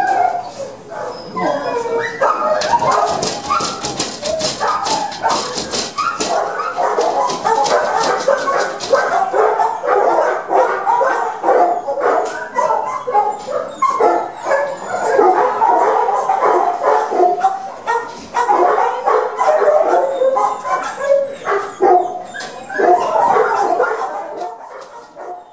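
Shelter dogs barking, yipping and whining without a break in a kennel run, their calls overlapping; they are excited because a walker has come to take a dog out. A run of rapid, sharp clicks or rattles sounds over the first several seconds.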